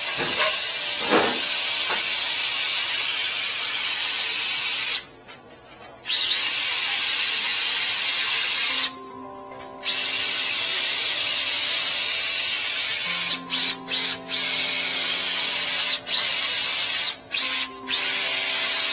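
Cordless drill spinning a flex-shaft drain cleaner inside a drain pipe to scour out hardened epoxy: a loud, hissing whir that stops abruptly twice for about a second, then cuts out briefly several times near the end as the trigger is released and pulled again.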